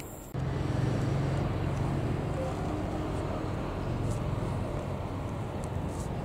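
Hitachi Rock ETR521 electric multiple unit approaching at low speed: a steady low electric hum with rolling wheel noise.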